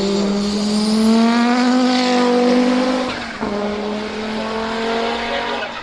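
Audi 200 Quattro Trans-Am's turbocharged 2.1-litre five-cylinder engine accelerating hard, its note rising. About three and a half seconds in it drops on an upshift, then climbs again in the next gear.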